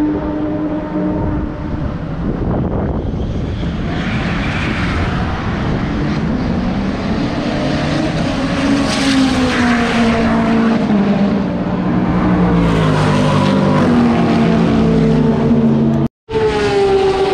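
Race car engines running hard past the spectators, several engine notes overlapping, each rising and then falling in pitch as the car goes by.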